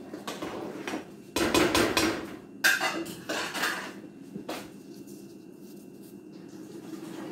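Metal utensil clattering against a stainless-steel cooking pot: a quick run of clanks and clinks, densest about a second and a half in, with a few more knocks before it goes quieter over the last couple of seconds.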